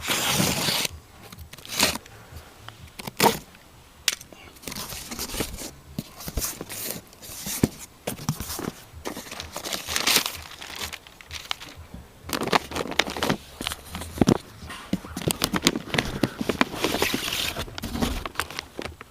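Packaging being handled and torn open by hand: irregular crinkling, rustling and tearing, with a few sharp knocks, the loudest about two and three seconds in.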